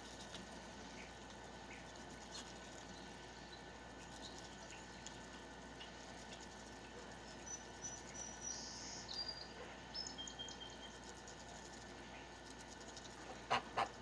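Faint pecking and nibbling of geese feeding on grain scattered on the ground, with soft scattered ticks. A few short high chirps of small birds come in the middle, and near the end there are three loud short sharp sounds close together.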